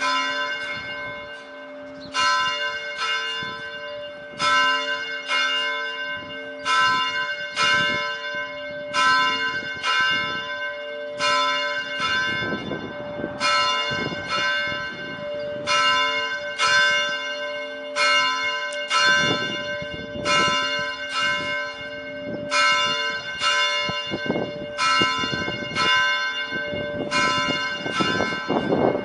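A single church bell rung repeatedly. The strikes come at an uneven pace of roughly one or two a second, and each leaves several ringing tones that sound on under the next strike.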